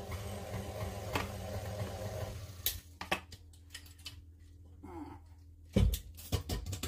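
Clicks and knocks of a plastic tub being handled against a stand mixer's steel bowl as butter is scraped out into the flour, with a heavier low thump near the end.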